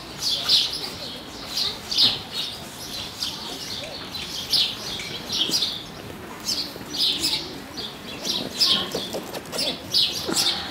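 Small birds chirping: short, high chirps repeating irregularly, roughly twice a second.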